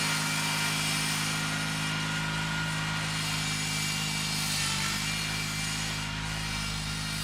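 John Deere 316 garden tractor's twin-cylinder engine running steadily under load while pulling a Brinly moldboard plow through the soil, growing a little fainter near the end.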